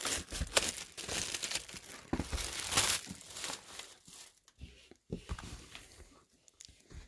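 Clear plastic shrink wrap being torn and crinkled off a cardboard trading-card box, crackling in dense bursts for about the first three and a half seconds, then fading to a few faint handling clicks.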